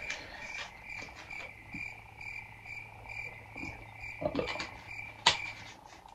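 Edited-in chirping sound effect: a short pitched call repeating about twice a second over a faint low hum, with a few soft handling knocks and a sharp click near the end.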